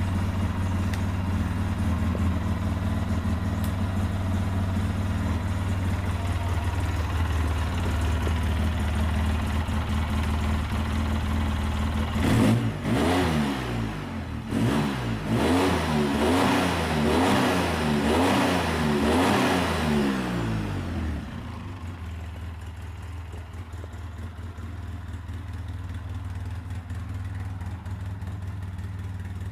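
ATV engine idling steadily, then revved up and down repeatedly, about once a second, for several seconds in the middle before settling back to a quieter idle.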